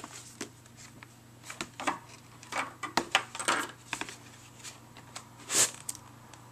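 Hands handling a cardboard product box: light scrapes, taps and rustles as the inner box is slid out of its outer sleeve, with a louder brushing slide a little after five seconds in.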